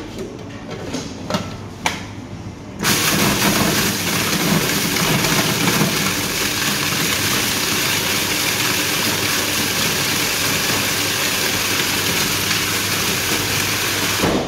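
A few clicks as the lid is seated on a Robot Coupe commercial food processor, then about three seconds in its motor starts and runs steadily, the blade churning sourdough breadcrumbs with oil into a paste, until it stops just before the end.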